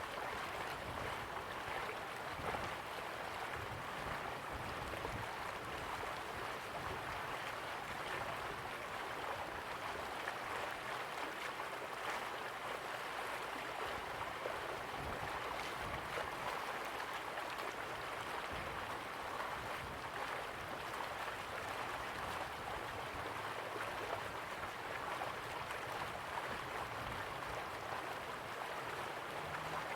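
River water flowing slowly, a steady even rush of water.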